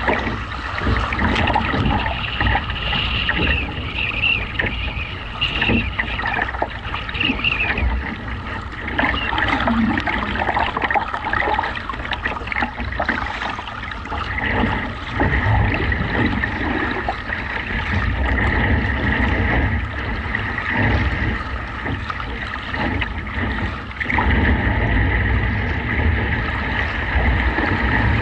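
Wind buffeting the microphone in gusts over choppy water, with waves sloshing against a kayak hull and paddle blades splashing at each stroke.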